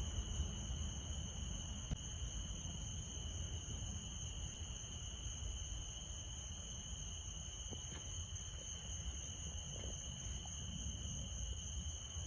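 Crickets trilling steadily, a constant high whine with a higher overtone, over a low, even rumble.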